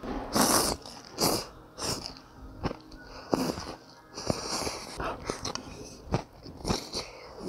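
A person slurping rice noodles from a bowl of beef noodle soup: a series of loud, wet slurps about once a second, the loudest about half a second in, with smacking chewing clicks between them.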